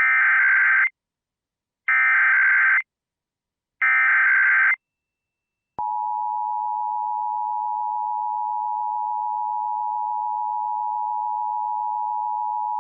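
Emergency Alert System SAME header: three one-second bursts of screeching digital data tones, about two seconds apart. About six seconds in, the steady two-tone EAS attention signal (853 and 960 Hz together) starts and holds.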